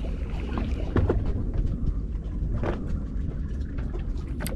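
Steady low rumble of a fishing boat at sea, with a few short sharp clicks or knocks from tackle on board.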